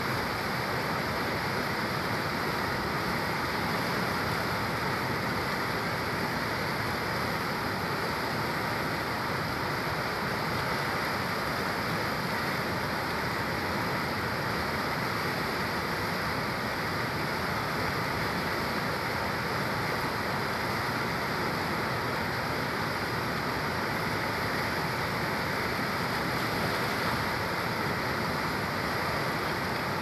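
Fast, muddy river rushing over rapids and boulders: a steady, unbroken rush of white water.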